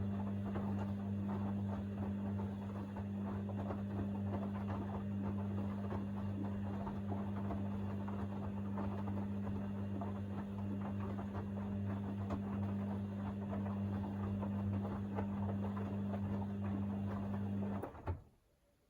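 Hoover DynamicNext washing machine in its 60° main wash: the drum motor hums steadily while the drum tumbles the wet load, until the motor stops suddenly near the end with a single click.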